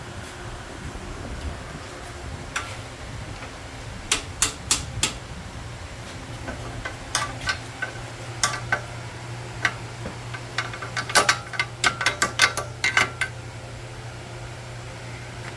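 Light metallic clinks and taps of a wrench and bolt being worked out of the rear subframe of a stripped 110cc quad frame. They come in scattered clusters, thickest about eleven to thirteen seconds in, over a steady low hum.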